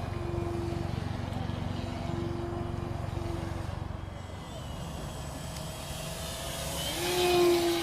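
Radio-controlled model biplane's motor droning at one steady pitch as the plane flies, fading in and out, then growing louder to a close pass near the end. A low rumble runs through the first half.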